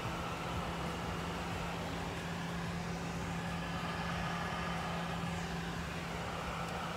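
Steady drone of a jet airliner heard from inside the cabin: even engine and air noise with a constant low hum.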